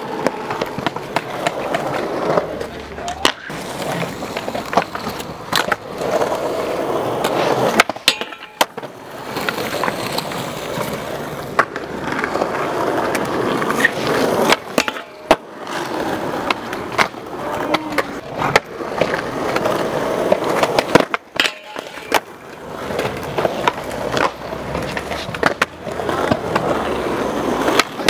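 Skateboard wheels rolling on concrete, broken by sharp clacks of the board popping, striking the metal flat rail and landing, over several takes.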